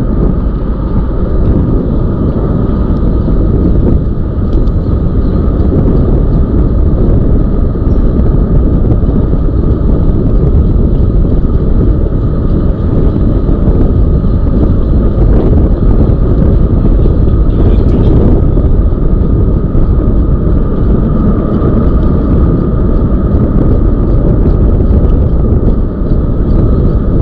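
Wind rushing and buffeting over the microphone while riding a Zooz electric bike, under a steady whine from its electric motor.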